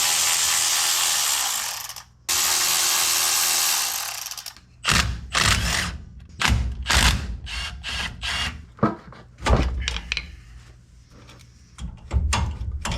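A power tool spinning bolts loose on a truck's front brake, in two bursts of about two seconds each, the first winding down with a falling whine. Then a run of irregular metal knocks and clatter as the parts are handled.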